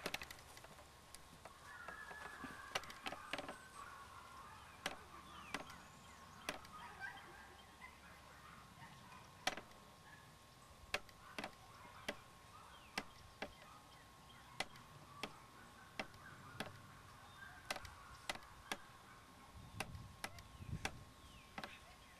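Faint open-air ambience with scattered sharp clicks at irregular spacing, over a low hiss and a steady faint high tone.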